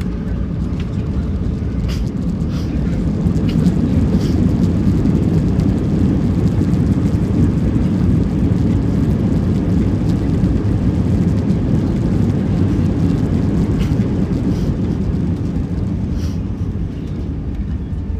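Airbus A320 on its landing roll, heard from inside the cabin: a loud, deep rumble of engines and runway that swells a few seconds in and eases off near the end, with occasional light rattles.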